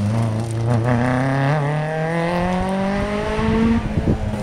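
Rally car engine accelerating hard in one long pull, its note climbing steadily for nearly four seconds, then dropping away near the end.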